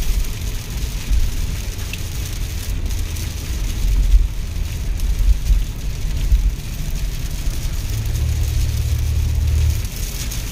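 Inside a Mercedes-Benz car driving on a rain-soaked road: a steady low rumble of engine and road noise, with the tyres hissing on the wet surface. A steadier low hum comes up for a couple of seconds near the end.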